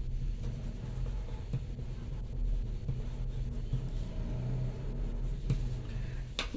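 Steady low rumble of a running motor, with a few faint scratches of a colored pencil on paper.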